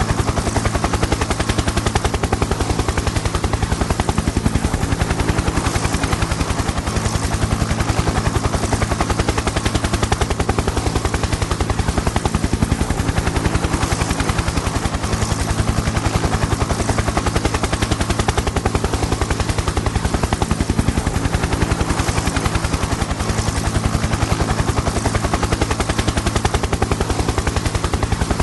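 Helicopter in steady flight: the main rotor's rapid, even blade beat over a steady engine hum, unchanging in pitch and loudness.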